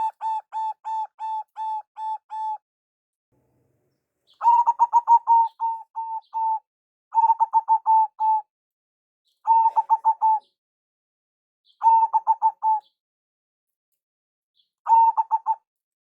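Zebra dove cooing in six phrases of rapid, evenly spaced short notes, each phrase lasting about one to two seconds with pauses between them.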